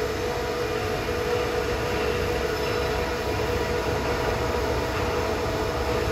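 Steady machinery hum with a couple of held tones over a rumbling noise, unchanging and without any punching strokes.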